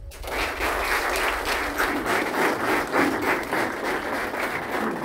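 A group of people applauding: dense, loud clapping that stops near the end.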